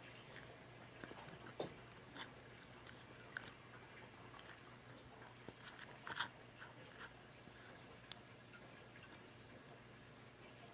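Clear slime with air bubbles being handled, giving faint scattered sticky clicks and small pops, the loudest about six seconds in, over a low steady hum.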